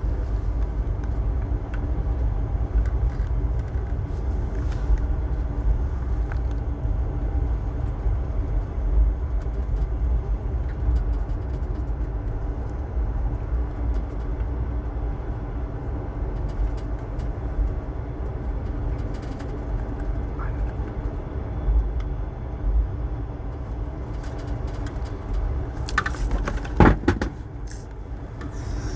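Passenger train in motion, heard from aboard: a steady low rumble of the running carriage, with a brief louder clatter about three seconds before the end.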